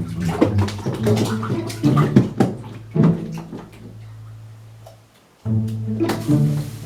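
Background music with a beat over a held bass note. It cuts out briefly about five seconds in, then starts again.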